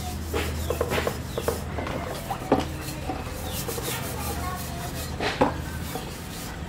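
Metal dishes being scrubbed by hand in a plastic washbasin: rubbing and scraping, with sharp clinks about two and a half and five and a half seconds in, over a low steady hum.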